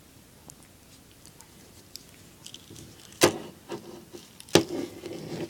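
Pocket knives being handled: small clicks and rattles, then two sharp knocks about three and four and a half seconds in, with clatter around the second.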